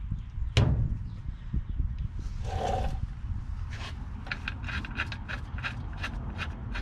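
Hand work on a drum brake assembly's shoes and hardware: a sharp metal click about half a second in, a brief scrape, then a run of quick light metallic clicks, about five a second.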